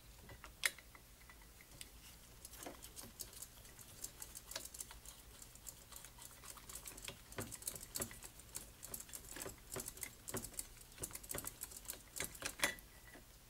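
Many light, quick clicks and ticks of a hand tool and small metal parts while a screw is worked out of the back of a one-barrel carburetor. The clicks come faster and closer together from about halfway through.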